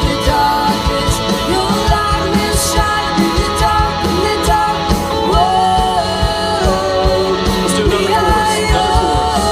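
Live rock-style worship band playing. A drum kit keeps a steady beat with kick drum and a couple of cymbal crashes under a singing voice and sustained band chords.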